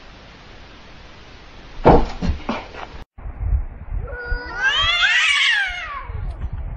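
A few thumps as a cat lunges at a wall mirror. Then a cat's long yowl that rises and falls in pitch, a threat caterwaul between two cats squaring off.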